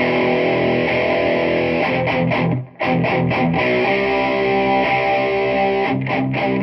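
Distorted electric guitar played through a Peavey 6505+ combo amp on its green channel, with an 8-ohm Eminence Swamp Thang speaker fitted: held chords and riffs, stopping sharply for a moment about two and a half seconds in.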